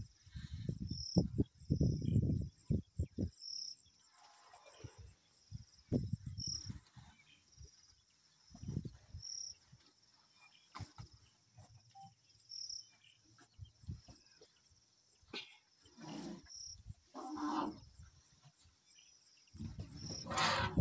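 An African elephant herd close by, with short noisy calls about two-thirds of the way through and near the end, among clusters of low thumps.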